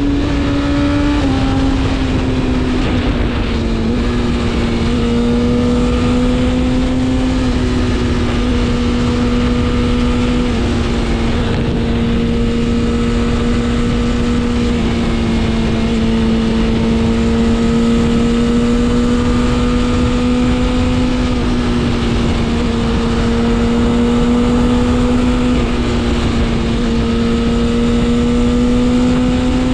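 BMW S1000RR's inline-four engine running at a steady cruising speed. Its pitch eases down over the first few seconds, then holds nearly constant with small shifts and rises slightly near the end, over a steady rush of noise.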